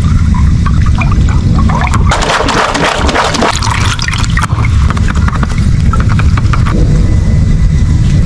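Water from a garden hose running into a stretchy rubber water-balloon toy as it fills: a steady low rushing, with brighter, noisier stretches about two to four seconds in.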